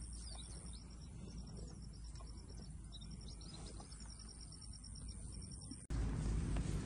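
Faint field ambience: a high trill in short repeated pulses, like insects, with scattered quick bird chirps over a low rumble. Near the end the sound cuts abruptly to a louder low rumble.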